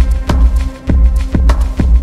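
Background music with a steady beat and heavy bass, about two beats a second.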